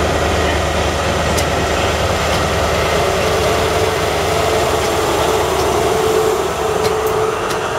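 The MTU diesel engine of an InterCity 125 (HST) power car runs with a steady heavy rumble as the train moves slowly along the platform. A steady mid-pitched whine comes in about three seconds in, and a few sharp clicks from the wheels on the track are heard near the end.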